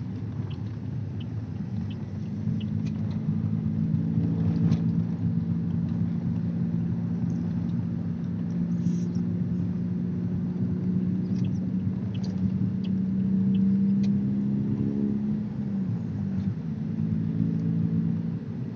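Engine hum and road noise of a moving vehicle heard from inside its cabin: a steady low engine note that slides down in pitch about fifteen seconds in, then settles again.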